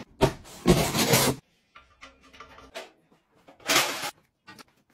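A cardboard box scraping as it is slid across a tile floor, in a short stroke and then a longer one lasting under a second, followed by faint scuffs and another short rub about four seconds in.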